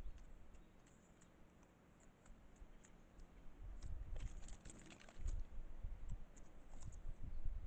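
Faint scattered clicks and scratches from Japanese squirrels in a tree, thickest about four to five seconds in, over an uneven low rumble.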